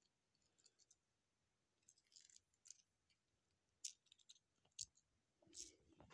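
Near silence with a few faint, scattered clicks and rustles as a McFarlane Toys Spawn Dark Ages plastic action figure and its steed are turned over in the hand and set down.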